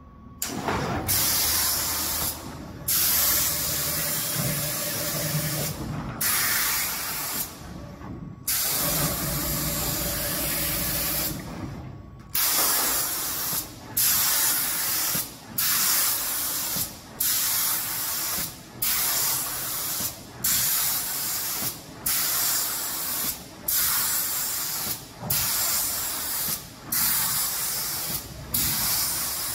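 Spray gun of an automatic door painting machine hissing as it atomizes paint with compressed air. It cuts on and off as the computer-controlled gun switches, in longer stretches at first and then in a regular pattern of short sprays about every second and a half.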